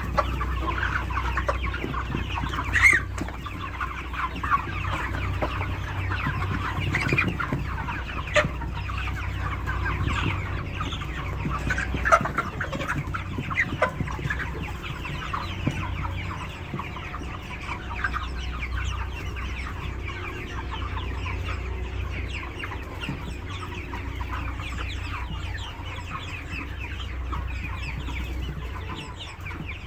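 A large flock of 42-day broiler chickens clucking and chattering without a break, with a few louder sharp calls standing out, over a steady low hum.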